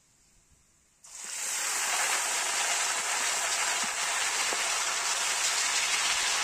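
Food sizzling steadily in hot oil in a cooking pan, starting suddenly about a second in.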